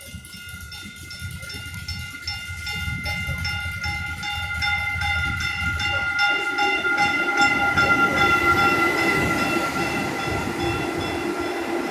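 Railroad crossing bell ringing in fast, even strokes as a train approaches, and the train's engine hum and rumble grow louder from about halfway in.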